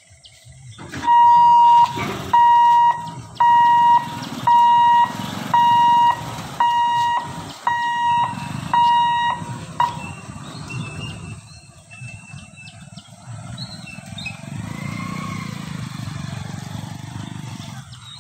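Level-crossing warning hooter beeping a loud, steady high tone about once a second, about nine times, stopping about ten seconds in. A vehicle engine runs low underneath.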